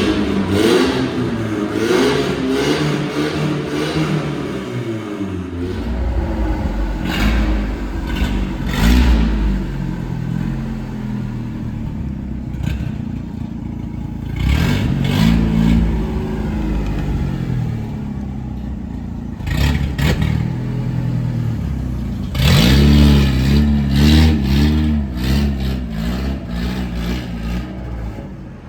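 Chevrolet S10's 2.4 four-cylinder gasoline engine revved repeatedly through a catalytic-converter-delete exhaust with a stainless-steel cutout. The revs rise and fall in several bouts, near the start, about halfway and again near the end, with short sharp sounds in between.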